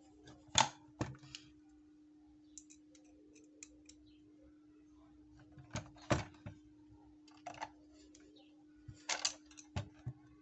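Plastic radio casing handled and fitted with screws: scattered clicks and knocks of plastic and small metal parts, the loudest about half a second, six seconds and nine seconds in, over a steady low hum.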